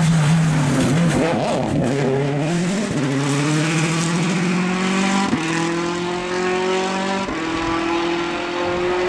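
Rally car engine running hard on a gravel stage: the revs waver for the first couple of seconds, then climb steadily as the car accelerates away, with a hiss of gravel and tyre noise underneath.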